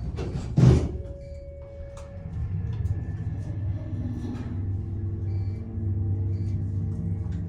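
Schindler MT hydraulic elevator's pump motor starting about two and a half seconds in and running with a steady pitched hum, pitched around the note A, heard from inside the cab. A single thump comes under a second in, before the motor starts.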